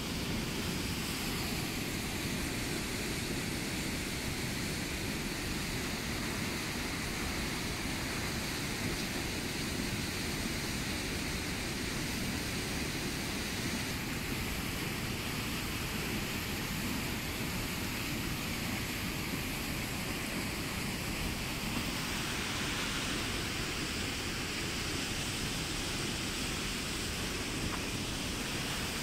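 Steady rushing of a flowing river, an even wash of water noise.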